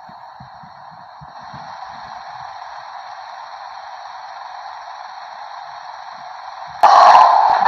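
A steady hiss that grows a little louder about a second in, then jumps suddenly much louder near the end.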